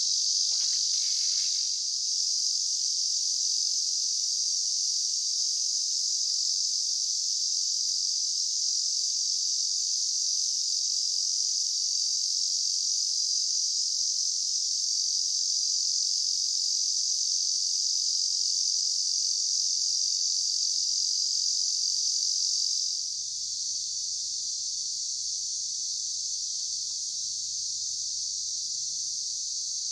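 A steady, high-pitched chorus of insects shrilling without a break. It drops slightly in level about 23 seconds in.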